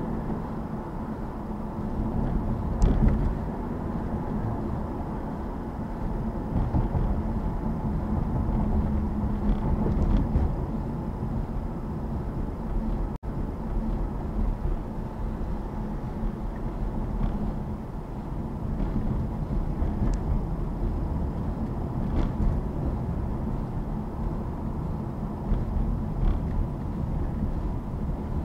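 Car driving: a steady low rumble of tyres and engine, with a few short sharp knocks scattered through it. The sound drops out for an instant about halfway through.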